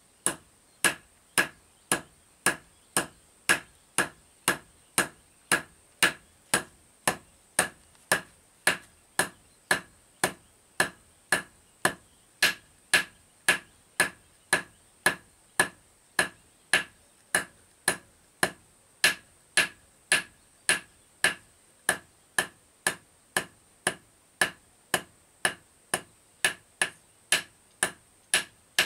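Blacksmith's hammer striking iron on an anvil in a steady rhythm, about two blows a second, each with a short metallic ring.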